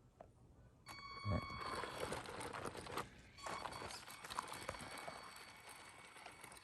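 1/10 scale RC rock crawler starting to move, its electric motor giving a brief whine about a second in, then tyres and chassis crunching and clattering over rocks and gravel.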